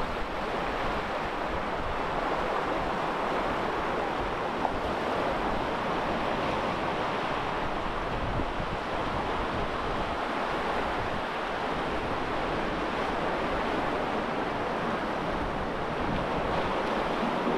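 Sea swell washing and breaking over a rock ledge just below, a steady surging rush that swells and eases, with a low rumble of wind on the microphone.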